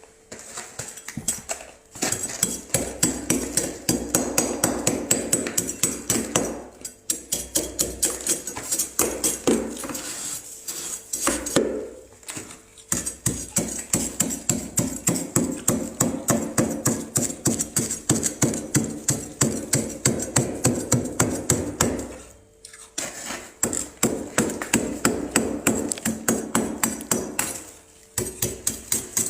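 Frost being scraped off the inside of a freezer: quick, regular scraping strokes, about four a second, in runs of several seconds with short pauses between them.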